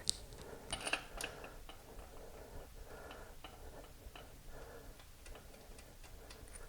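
Light, irregular metallic clicks and clinks of intake manifold bolts and washers being handled and started, with a sharper click at the very start and a cluster about a second in.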